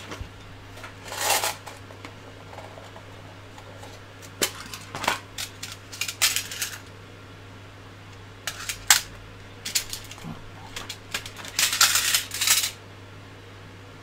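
Small hard parts clicking and clattering in a plastic parts tray as a hand rummages through it, in several short bursts with the busiest near the end. A faint steady low hum runs underneath.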